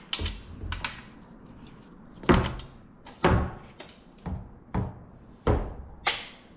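Propeller hub plates, bolts and blades knocking and clunking as they are handled and fitted together on a cardboard-covered table: a run of about eight sharp, irregularly spaced knocks, the loudest a little over two seconds in.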